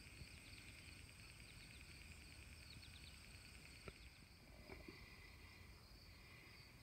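Faint outdoor meadow ambience: insects trilling steadily in the grass, with a few brief faint chirps and ticks around the middle.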